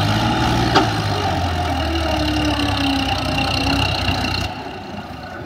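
Sonalika DI 50 tractor's diesel engine running steadily as it reverses a loaded trolley over loose soil, with one sharp click about a second in. The engine drops back near the end.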